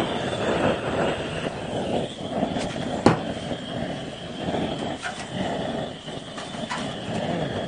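Butane torch burning into a pot of charcoal to light it, a continuous rushing hiss. A single sharp click comes about three seconds in.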